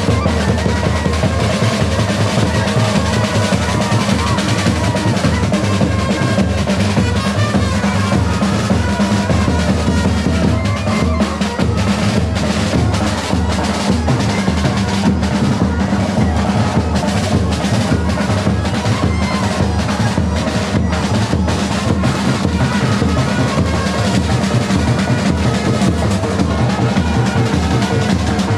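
Music carried by fast, dense drumming with a heavy bass drum, going on without a break.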